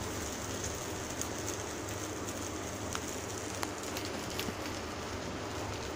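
Adai dosa batter sizzling steadily in coconut oil on an iron tawa, with a few faint clicks of the steel ladle against the pan as the batter is spread.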